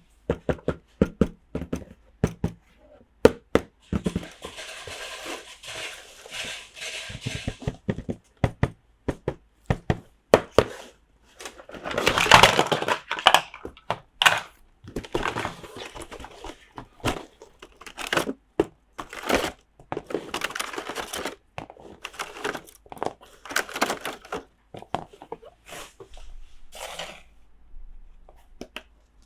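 Plastic toy playset pieces and their packaging handled close to the microphone: many sharp plastic clicks and taps, with a stretch of crinkling about four to eight seconds in and a louder burst of rustling around twelve seconds in.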